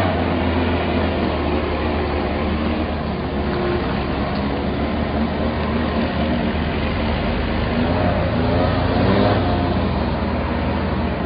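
Motor vehicle engine running steadily with a low hum, as if driving along.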